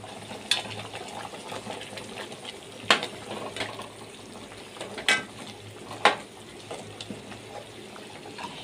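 A spatula stirring a ground spice powder into thick, simmering chicken gravy in a pan, knocking sharply against the pan about four times over a steady bubbling sizzle.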